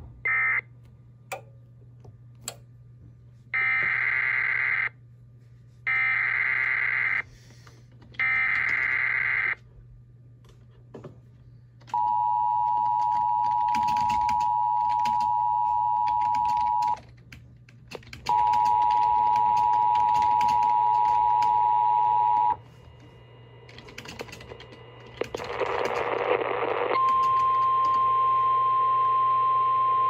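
EAS alert over an emergency alert decoder's speaker: three short bursts of screechy SAME header data tones, then the two-tone attention signal in two long stretches with a short break between. A burst of static follows, then a single steady tone near the end.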